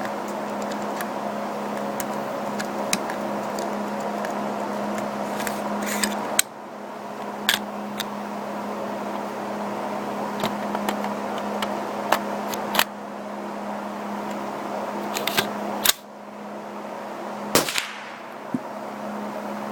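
Rifle shots from an AR-15 fitted with a CMMG .22LR conversion kit: about ten sharp, fairly light cracks at irregular intervals, over a steady low hum.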